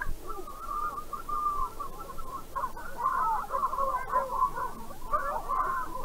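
Many birds calling at once: a dense chorus of short, overlapping calls. A brief low thump sounds right at the start.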